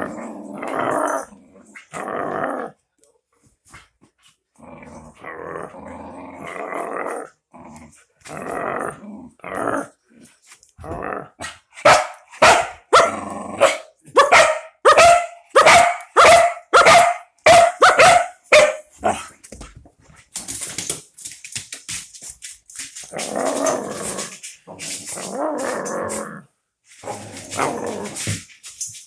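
A dog play-growling in a game of tug-of-war with a rope toy, in rough bouts with short gaps. About halfway through comes a run of loud, short barks, roughly two a second, before the growling resumes.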